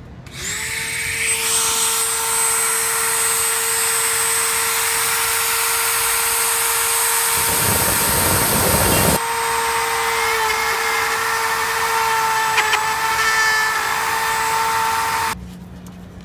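Dremel rotary tool spinning up and running at a steady high whine as its bit grinds out a button hole in a clear plastic GoPro housing, enlarging the hole. About halfway through there is a rougher grinding stretch of a second or two, and the tool switches off about a second before the end.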